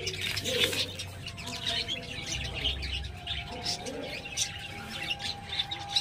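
Birds chirping repeatedly with some lower calls, over the rustle of millet grains being stirred by hand in a steel plate.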